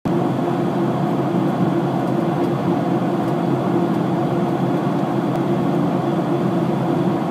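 Airliner cabin noise in flight: the steady drone of the engines and rushing air, heard from a window seat inside the cabin, heaviest in a low hum.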